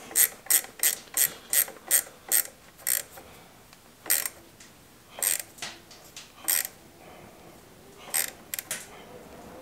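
Ratchet wrench clicking as the hydraulic pump's mounting bolts are tightened: a quick even run of clicks, about three a second, for the first three seconds, then short scattered bursts of clicks.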